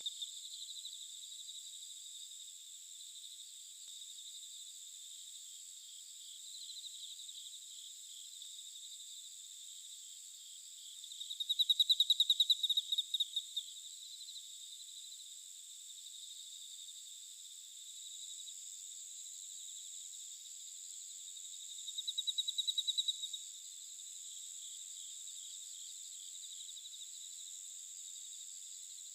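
Insects trilling in a steady, high-pitched chorus, with two louder bouts of rapid pulsing, one about eleven seconds in lasting some three seconds and a shorter one about twenty-two seconds in.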